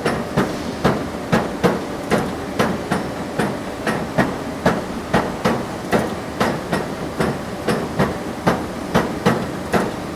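Factory machine running with a regular mechanical knocking, a little over two strikes a second, over steady machine noise.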